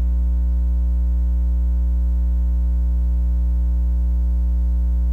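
Loud, steady electrical mains hum in the audio feed: a deep buzzing tone with a stack of overtones that does not change at all.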